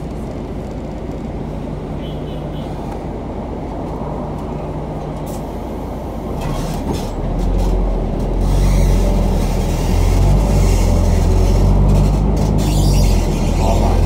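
City bus engine running at a steady low idle, heard from inside the cabin. About six and a half seconds in it gets clearly louder and heavier as the bus pulls away from the stop.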